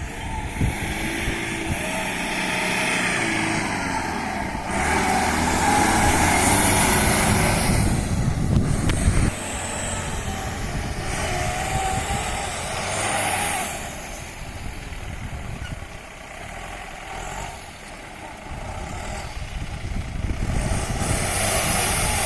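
A 4x4 off-road vehicle's engine revving hard as it works through mud. It swells and dips, loudest from about five to nine seconds in, eases off in the middle, and climbs again near the end.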